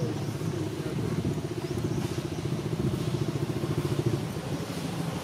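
An engine idling steadily with fast, even pulses.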